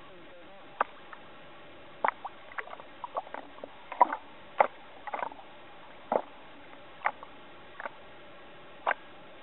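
Small waves slapping against a camera held at the surface of the sea: irregular sharp pops and little squeaky clicks of water, about a dozen, over a steady hiss.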